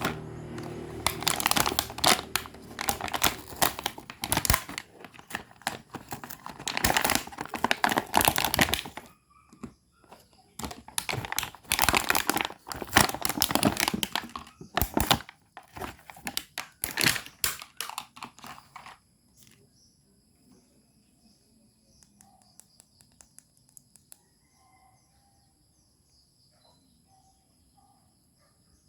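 Toy packaging being crinkled and torn open in dense, quick bursts, stopping abruptly about two-thirds of the way through and leaving only faint small sounds.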